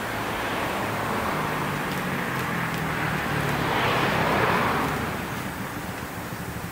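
A motor vehicle passing: a steady rushing sound over a low hum that swells about four seconds in and then fades.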